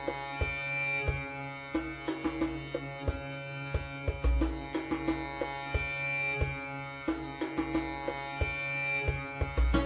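Background music with a sustained drone and repeated drum strokes.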